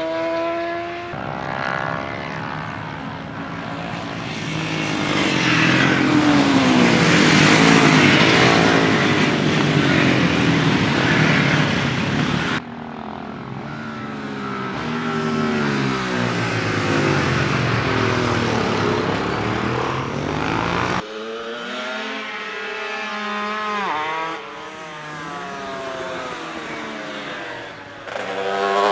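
Classic racing motorcycles passing at speed on a race track, their engines rising and falling in pitch as each goes by, with several abrupt changes from one pass to the next.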